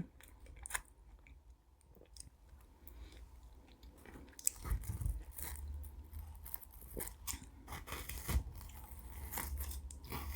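Close-miked eating of Pavlova meringue cake: faint, scattered mouth clicks at first, then from about halfway busier chewing with soft crunches.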